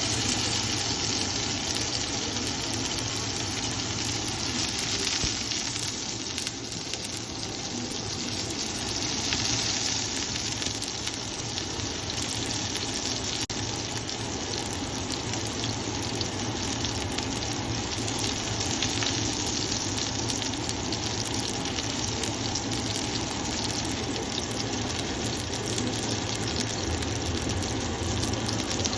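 Japanese A5 wagyu ribeye steak sizzling steadily as it sears on hot metal.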